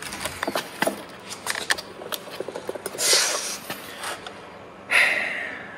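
Scattered light clicks and taps of hand work on a car headlight, with two short rushing noises, about three seconds in and again near five seconds, the second fading away.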